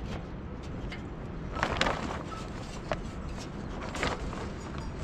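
Steady low outdoor noise with a few brief, sharp knocks: two close together about two seconds in, one near three seconds, and one about four seconds in.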